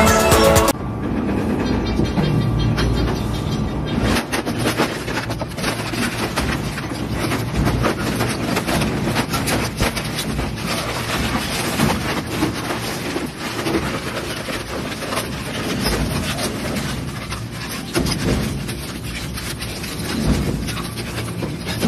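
Twin-shaft shredder's toothed rotors crushing scrap metal, including a rusty bicycle, with continual irregular metallic clanks and rattling over the machine's running noise.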